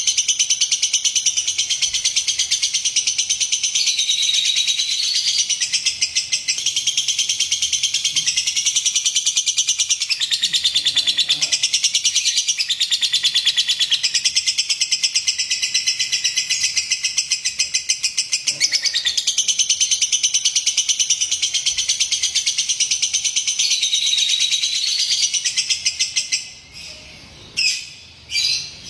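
Lovebird chattering in one long, unbroken run of rapid high chirps, the kind of recording played as a lure to set other lovebirds singing. Near the end the run breaks up into a few short bursts.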